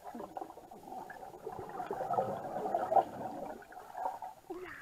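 Muffled underwater bubbling and churning water heard through a submerged camera as a swimmer tumbles and breathes out air bubbles. It builds toward the middle and dies away near the end.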